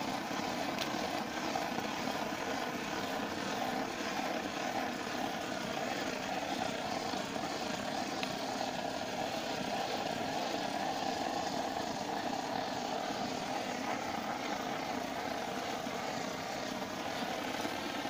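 Brass pressure blowlamp burning steadily, a continuous rushing flame noise that holds an even level, as it heats heat-shrink tubing on a cable termination.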